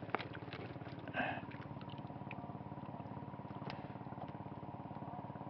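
Faint, steady drone of a boat engine running with a fast, even pulse, with a few light clicks of handling in the boat.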